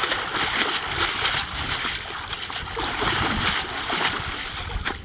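Water splashing and sloshing as a square mesh bloodworm scraper net on a long pole is worked up and down in shallow pond water, washing the mud out through the mesh. The splashing is loud and continuous, with many quick slaps of water.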